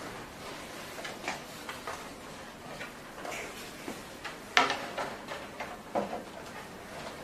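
Irregular light clicks and taps of the parts of a facial beauty machine being handled and fitted together, the loudest about four and a half seconds in.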